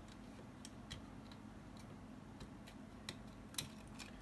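Faint, scattered small clicks and taps from handling a dash cam's circuit board while unplugging the camera's ribbon cable, about nine in four seconds.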